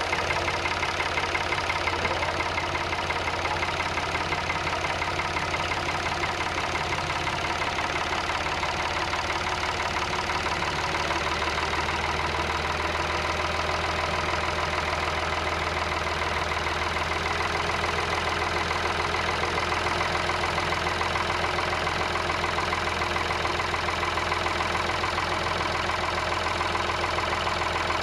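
Tractor engine running steadily under load, pulling a potato planter through the field.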